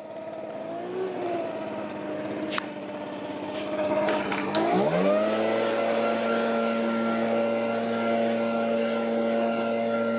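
Gas-powered leaf blower engine running unsteadily at part throttle, then revving up sharply about halfway through and holding steady at full throttle. A single sharp click comes shortly before the rev-up.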